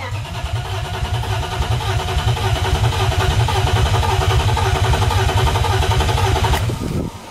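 Starter motor cranking a BMW M52 inline-six with its ignition coils unplugged, so the engine turns over in an even rhythm without firing while oil pressure builds. The cranking stops suddenly about seven seconds in.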